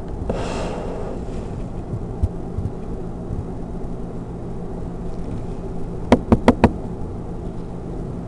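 Steady low background hum, with a brief breathy rush about half a second in and four quick, sharp knocks in close succession a little after six seconds.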